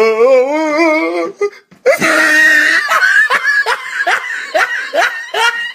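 A wavering, drawn-out vocal tone, then after a brief break a loud shriek that runs into rapid, rhythmic laughter, about three bursts a second.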